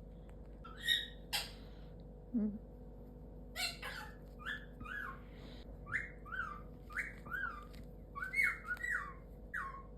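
A pet parrot making soft chirps and clicks, then a string of short, falling whistled chirps in the second half.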